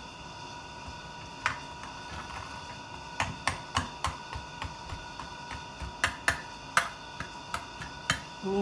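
Irregular light clicks and taps of crackers and a metal knife against a metal baking pan as a layer of crackers is laid in. The clicks are sparse at first and come thickest from about three seconds in.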